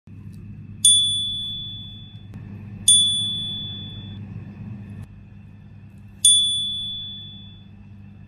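Three bright ding sound effects, each a clear high chime that strikes and fades over a second or so, spaced about two and three seconds apart over a faint low hum.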